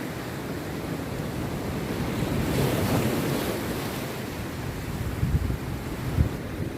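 Rough sea surf breaking on a beach, a wave surging up louder about a third of the way through. Wind buffets the microphone in two short low thumps near the end.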